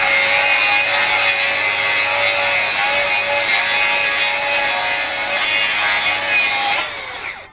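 FLEX FX2141R 24-volt brushless rear-handle circular saw with a 7-1/4-inch blade cutting steadily along a pressure-treated 2x board after a plunge cut, with a steady motor whine under the cutting noise. About seven seconds in the trigger is released and the blade spins down, its pitch falling.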